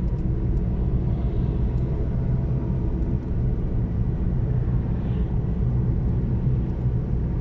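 Steady rumble of a car's engine and tyres on the road, heard from inside the cabin while driving.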